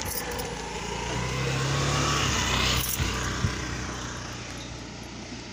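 Motorcycle engine running as the bike moves off and rides along. It grows louder about a second in, then slowly eases off.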